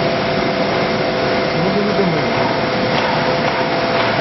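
PVD vacuum coating machine running mid-coating: a steady whirring noise with two steady hum tones. A short rising-then-falling tone comes about two seconds in.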